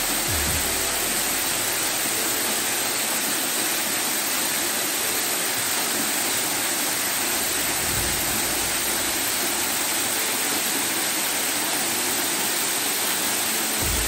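Waterfall pouring onto rocks close by: a steady rush of falling water, with brief low rumbles on the microphone about eight seconds in and again near the end.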